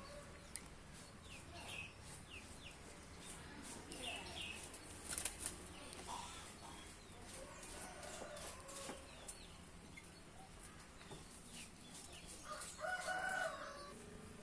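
A sooty-headed bulbul (kutilang) giving scattered short chirps, with a few sharp clicks and rustles, and a louder, fuller call about thirteen seconds in.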